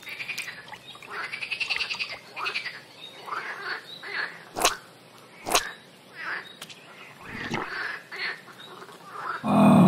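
Cartoon animal sound effects: a string of short chirping and croaking calls, with two sharp clicks about halfway through and a louder, lower sound swelling near the end.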